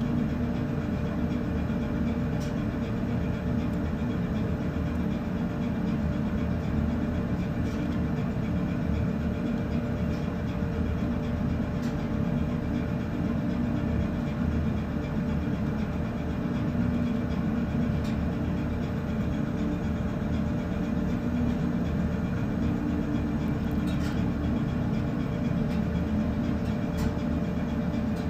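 Steady low drone of a ship's engines and machinery running under way, with a faint steady hum.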